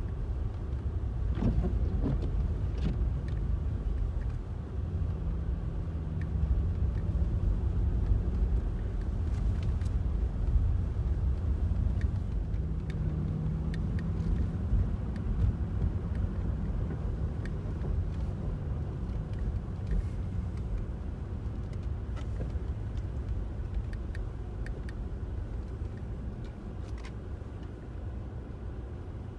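Road noise of a moving car heard from inside the cabin: a steady low rumble of tyres and engine. A faint hum comes in for a stretch in the middle, with a few light clicks.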